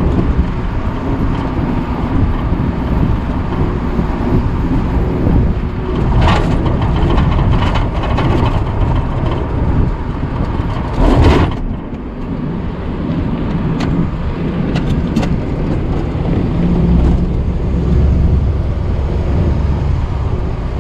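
Steady low rumble of a moving vehicle, with a few short knocks about six and eleven seconds in and again around fourteen to fifteen seconds.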